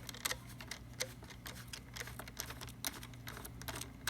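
Irregular light clicks and ticks of a triangular screwdriver working the casing screws out of a coffee grinder, over a faint steady low hum.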